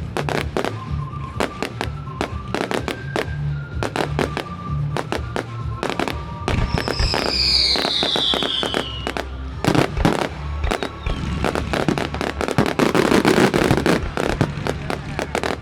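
Fireworks display: rapid bangs of shells bursting in quick succession, a falling whistle about halfway through, and dense crackling near the end, with music playing underneath.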